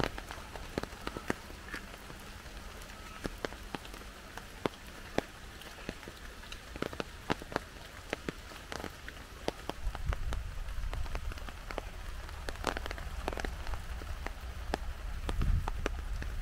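Heavy rain falling steadily, with many sharp, separate drops striking a nearby surface over the hiss. Low rumbles come about ten seconds in and again near the end.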